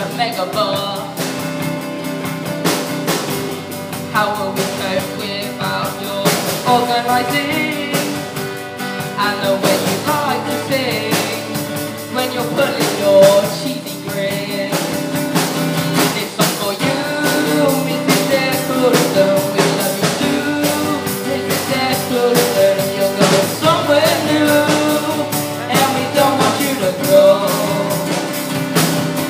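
A rock-style song with a singing voice over a band with a drum kit.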